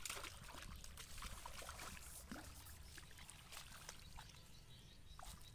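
A hooked fish splashing and thrashing in shallow water among water hyacinth, loudest in the first second, then quieter.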